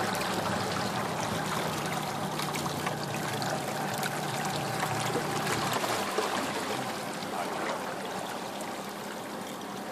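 Water sloshing and rushing around a small open fishing boat, a steady noise with scattered small ticks. A low steady hum underneath stops about six seconds in.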